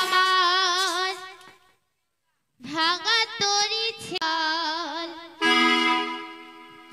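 Stage music with a wavering melody line full of vibrato. It cuts out completely for under a second about two seconds in, comes back, and ends on a held chord that fades away.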